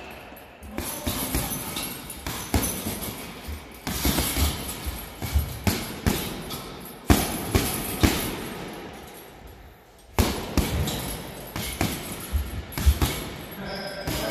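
Boxing gloves punching a heavy bag in irregular flurries of thuds, with the bag's hanging chain jingling and rattling on the hits.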